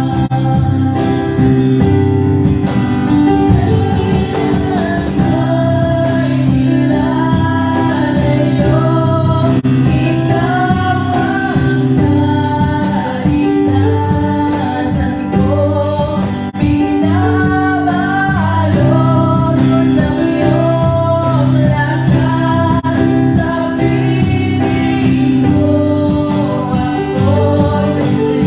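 Worship song: singing over instrumental accompaniment with sustained bass notes.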